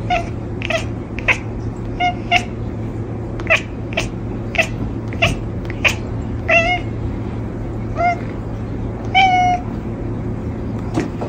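A domestic cat chattering: a string of short, sharp chirps and clicks at irregular intervals, a few of them drawn out into longer pitched chirps, over a steady low background hum.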